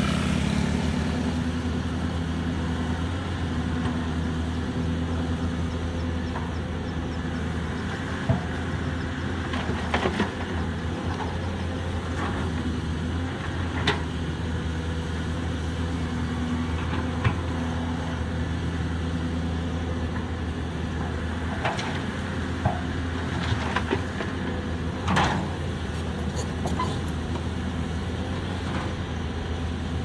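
Diesel engine of a Caterpillar 320D hydraulic excavator running steadily as the machine slews and lifts its boom, with a handful of short sharp clicks and knocks over the hum.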